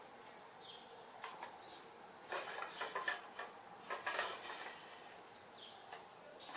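Wooden katana's purpleheart blade sliding out of its wooden scabbard and back in, with two short spells of wood rubbing and clicking a second or so apart, near the middle.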